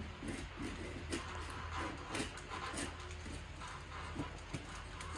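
Pocket knife scraping and picking at the seam between a ceiling supply register's sheet-metal box and the sheetrock, clearing out mold and debris: irregular short scratches and ticks over a low steady hum.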